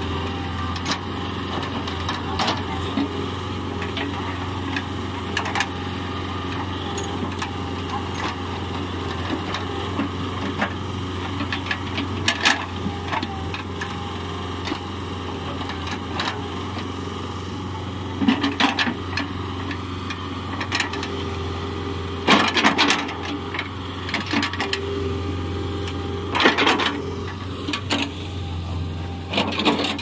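Backhoe loader's diesel engine running steadily at a constant pitch, with scattered sharp knocks over it that come thicker and louder in the second half.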